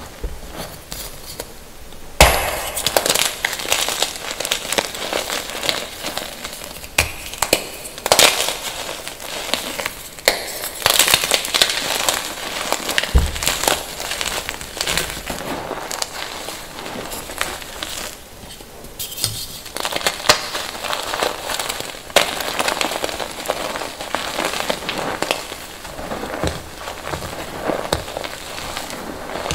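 Gym chalk being crushed by hand: dense crunching and crackling as the chalk blocks break into chunks and powder, with a loud crunch about two seconds in. A noticeable echo lingers on the crunches.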